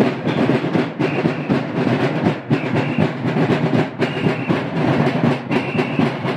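Several large Cape Verdean São João tambor drums beaten together in a fast, driving, clattering rhythm. A short high note sounds on top about every second and a half.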